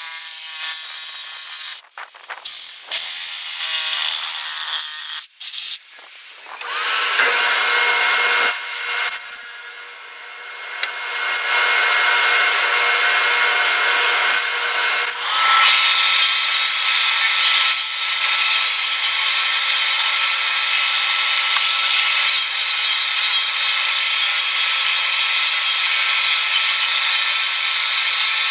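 Cordless drill driving screws into a board in short stop-start bursts. After that a table saw runs and cuts wood, and then a belt-and-disc sander runs steadily while a board end is sanded on its disc.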